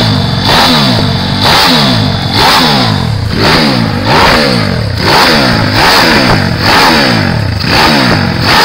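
Modified 160cc Vini step-through motorcycle engine with two carburettors, revved hard in repeated throttle blips about once a second; each rev climbs fast and falls back.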